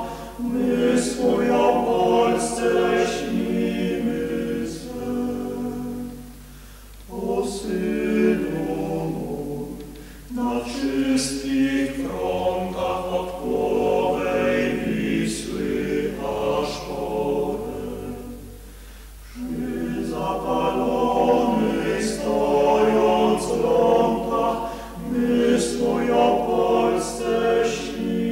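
Several voices singing together unaccompanied, in long phrases with brief pauses between them.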